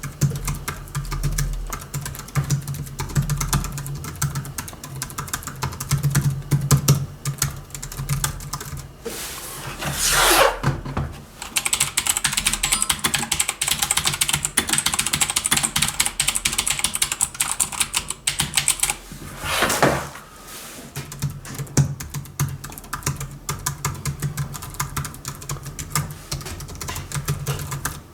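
Typing on a Hansung GK698 OfficeMaster pantograph (scissor-switch) low-noise keyboard: a quick run of soft key clicks, denser and faster for several seconds in the middle.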